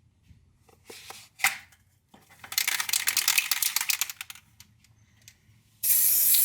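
Workshop handling noises: a few light clicks and a sharp knock, then about two seconds of dense, rapid scratchy rasping, and near the end a loud steady hiss sets in.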